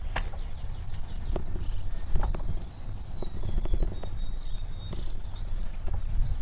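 Small songbirds chirping and singing, over a steady low rumble and scattered sharp clicks and knocks from a bicycle ridden along a paved lane.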